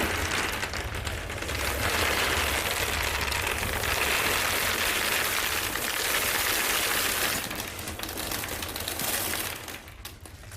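Dense crackling rattle of many small hard-coated candies spilling and clattering out of a prop alien's opened torso, dying away near the end.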